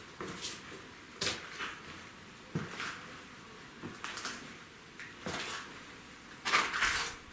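Footsteps crunching and scraping on a concrete stairwell strewn with broken glass, plaster and brick rubble. The steps come roughly every second and a bit, often as pairs, and the loudest, longest crunch comes near the end.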